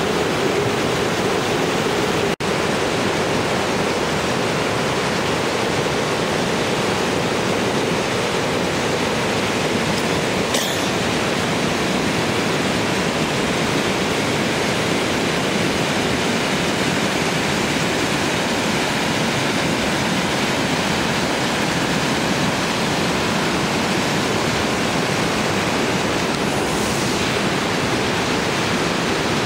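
A small waterfall: water falling and rushing in a steady, unbroken noise.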